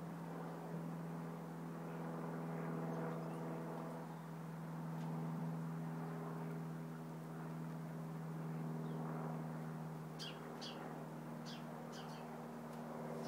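A steady low machine hum with several overtones, slowly swelling and fading, and a few short, high bird chirps about ten seconds in.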